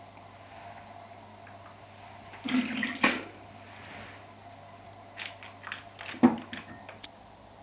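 Water splashing briefly into a bathroom sink about two and a half seconds in, then a few light clicks and one sharp knock as things are handled at the sink.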